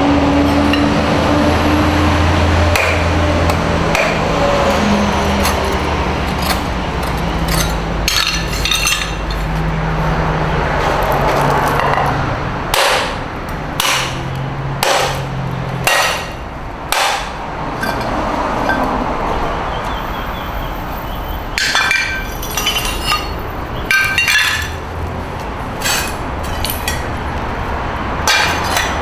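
Hammer blows breaking up a porcelain sink: irregular sharp knocks and cracks with clinking shards, over a steady low hum.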